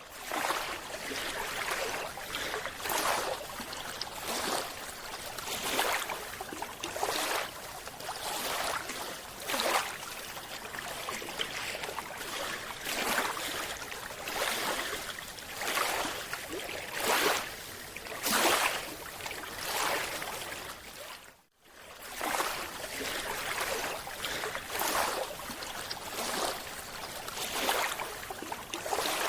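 Water sloshing and splashing in a run of repeated swishes about once a second. The sound drops out briefly about two-thirds of the way through, then carries on.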